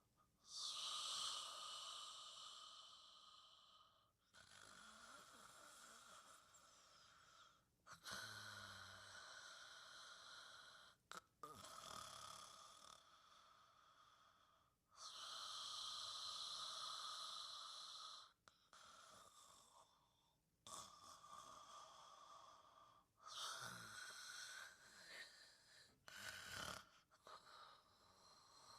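Gentle snoring of someone asleep: faint, slow, hissy breaths, each lasting a few seconds, one after another.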